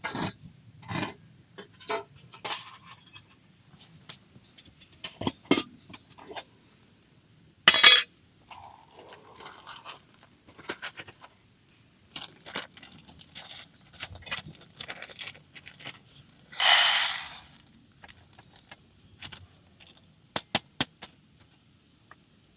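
Metal camp cookware and stove gear being handled: irregular small clinks and knocks, with two longer, louder scraping noises about eight and seventeen seconds in.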